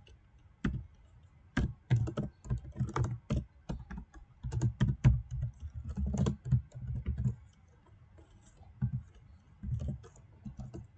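Typing on a computer keyboard: irregular runs of keystroke clicks with a pause of about a second about two-thirds of the way through.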